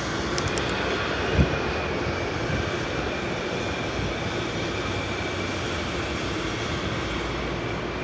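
A steady mechanical drone that holds level throughout, with a single thump about a second and a half in.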